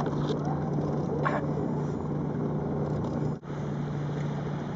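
Boat motor idling, a steady low hum that cuts out for a moment about three and a half seconds in.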